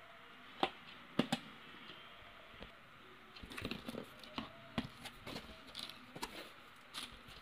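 Cardboard box being opened by hand: a few sharp clicks and scrapes as a blade slits the packing tape, then about halfway through a run of soft rustling and crinkling as the cardboard flaps and paper wrapping are pulled aside.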